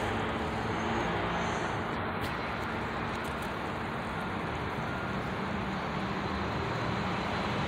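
Steady hum of distant road traffic, an even wash of noise with a faint low drone.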